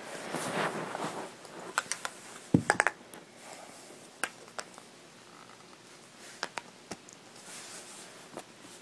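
Rustling handling noise, then a quick cluster of sharp knocks about two and a half seconds in, followed by scattered single clicks: pipe pieces and their T and elbow fittings being handled and knocked together during assembly.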